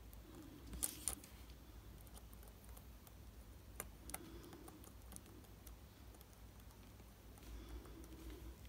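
Watch-repair tweezers and a small circuit board making a few faint, sharp clicks as the board is seated onto a digital watch's plastic module: two about a second in and two about four seconds in, over a low room hum.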